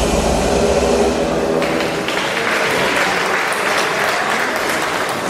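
Dance music with a bass beat stops about a second and a half in, and a crowd breaks into applause.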